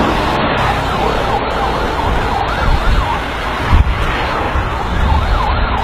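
An emergency-vehicle siren wailing, rising and falling quickly, over a loud steady rush of wind and road noise from a moving vehicle in a strong wind.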